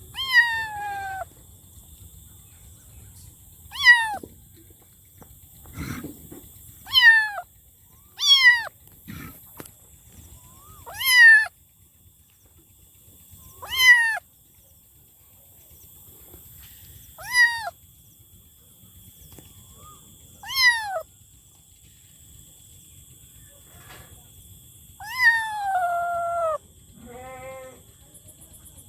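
A kitten meowing again and again, about nine short meows a few seconds apart, each one falling in pitch.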